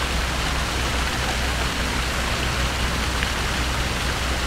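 Steady splashing of falling water, likely from a public fountain, over a low, steady rumble.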